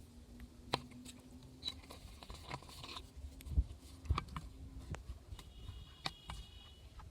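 Faint scattered clicks and knocks over a low rumble, with a brief thin high tone near the end.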